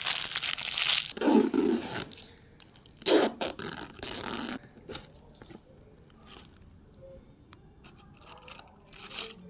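Packaging of a Ferrero Rocher chocolate box being crinkled and torn open by hand. Two loud rustling spells, the first about two seconds long and the second about a second and a half, then only a few faint clicks.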